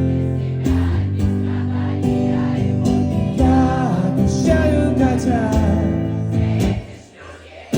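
Live band music from the concert's sound system: bass, drums and guitar with a wavering melody line over them. About seven seconds in, the band drops out for under a second before coming back in full.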